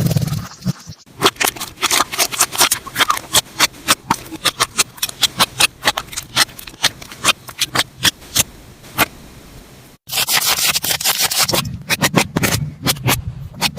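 Slime being squeezed and pressed by hand, making a quick run of sharp clicks and pops. The texture changes abruptly about ten seconds in, to denser clicking over a low hum.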